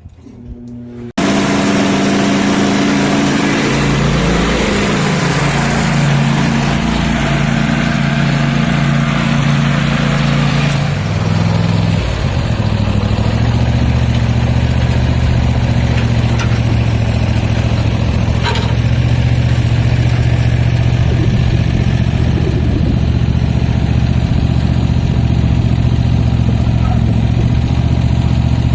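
A large room fan switches on about a second in with a sudden loud rush of air. It runs over the Cub Cadet ZT1 zero-turn mower's engine, whose pitch shifts a few times and settles lower and heavier about eleven seconds in.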